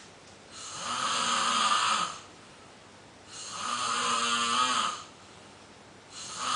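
A sleeper snoring in a slow, regular rhythm: a rattling snore about every two and a half to three seconds, two full ones and a third starting near the end.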